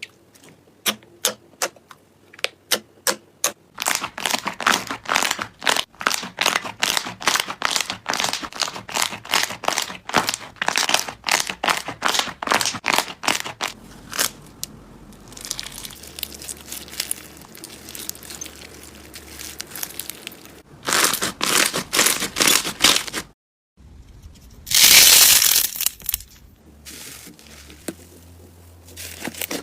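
Slime being worked by hand: rows of sharp clicking pops as it is pressed and poked, quickening after a few seconds. After that come crinkly, crunchy stretches, a brief silence at a cut, and a louder crunching burst near the end.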